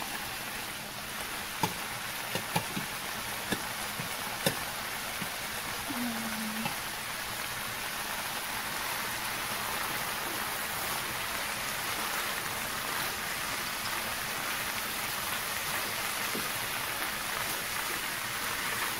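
Diced bell peppers, cabbage and onion sizzling steadily with black beans in a hot stainless-steel pan, with a few light knocks in the first few seconds.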